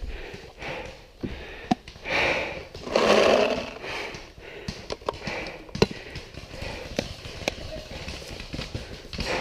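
Paintball gunfire: sharp pops at irregular intervals, some louder and some fainter. There are two louder rushes of noise around two and three seconds in.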